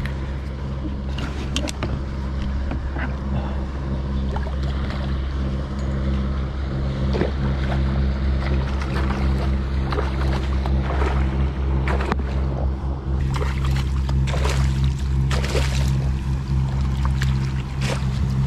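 Water sloshing and splashing around a kayak over a steady low engine-like hum, with scattered clicks and knocks, while a hooked bonito is played on rod and reel. The clicks and splashes come more often in the second half.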